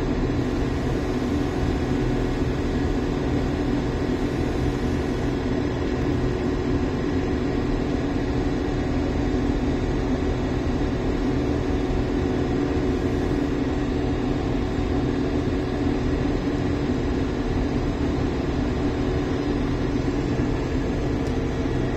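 Diesel engine of a JCB Vibromax single-drum roller running steadily as the roller drives along a stone path, heard from the driver's seat as an even, unchanging drone.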